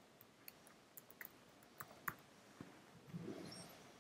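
Faint computer keys and clicks, a handful of irregular taps spread over the first three seconds, then a brief soft muffled rustle a little after three seconds in.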